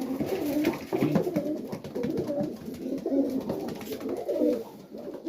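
Several Serbian highflyer pigeons cooing at once in the loft, their low, wavering coos overlapping continuously.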